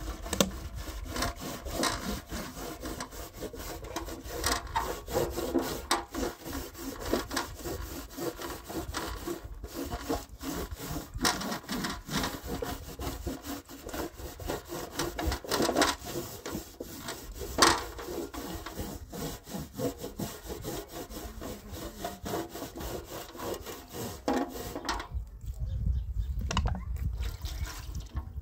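A scouring pad scrubbed hard across a round metal tray with a raised, dimpled surface, in quick back-and-forth strokes. The scrubbing stops about three seconds before the end.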